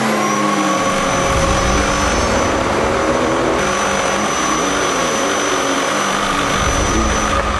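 Upright vacuum cleaner running steadily, loud: rushing air with a thin, steady high motor whine through it.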